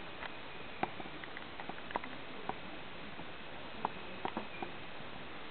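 Bearded dragon eating lettuce: small, sharp crunching clicks at irregular intervals, a cluster in the first couple of seconds and another about four seconds in, over a steady hiss.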